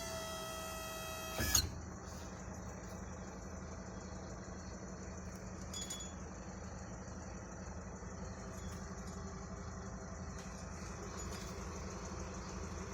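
Zepro truck tail lift's electric hydraulic pump motor whining for about a second and a half, then stopping with a clunk. This is followed by a steady low hum.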